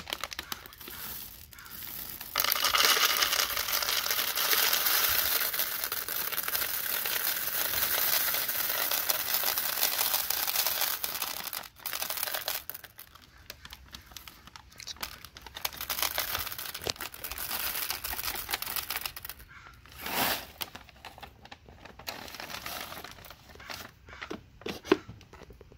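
M&M's chocolate candies poured from a plastic bag into a wooden dispenser bin: a dense, continuous rattling rush of candies lasting about nine seconds, starting a couple of seconds in. Quieter crinkling of the plastic bag follows.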